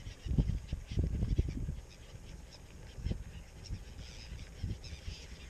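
Wind gusting on the microphone in low, uneven buffets that die down about two seconds in, with faint calls from a flock of seabirds on the water.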